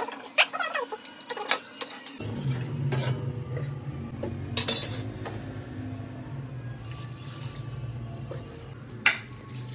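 A metal spatula clinks and scrapes against a metal kadai and an aluminium pressure cooker as cooked mutton is scooped from the pan into the cooker, with a few sharp clinks. Soft steady background music plays throughout.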